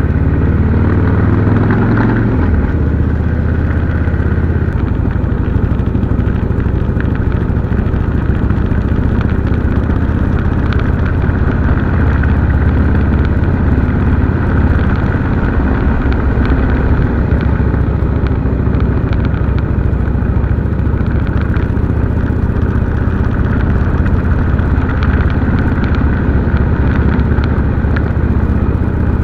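Harley-Davidson V-twin motorcycle engine running steadily while riding. The engine note drops about two seconds in.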